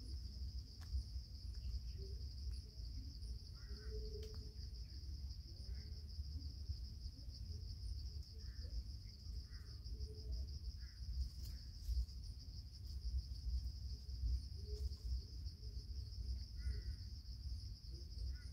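Steady, high-pitched insect chorus: a continuous fast trill, typical of crickets, over a low rumble, with a few faint short chirps now and then.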